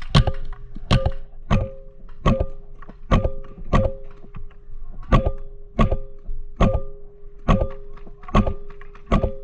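Paintball marker firing a string of single shots at an uneven pace, a little under one shot a second, each sharp pop followed by a short ringing tone.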